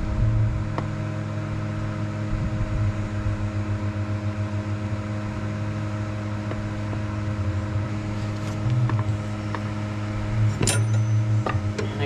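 Steady low machine hum with an even pitch, and a couple of sharp metallic clicks near the end as a wrench goes onto the engine.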